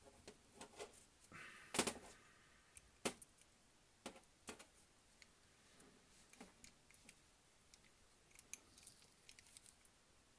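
Faint, scattered light clicks and taps of small metal and plastic model-locomotive parts being handled, with a louder click about two seconds in.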